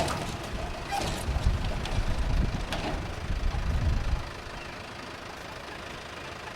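A motor vehicle's engine running close by, a rough low rumble with scattered knocks and clicks, dropping to a quieter, steady background after about four seconds.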